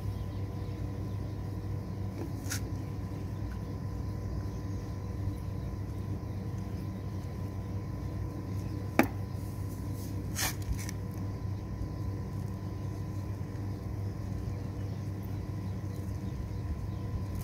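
Steady low outdoor rumble with a faint steady high tone behind it. A few short sharp clicks of PVC pipe fittings and cement brush being handled come through, the loudest about nine seconds in and a couple more just after.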